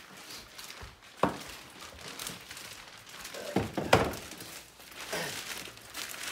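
Packaging and a car bumper being handled: crinkling and rustling with a few knocks, one about a second in and a louder cluster about four seconds in.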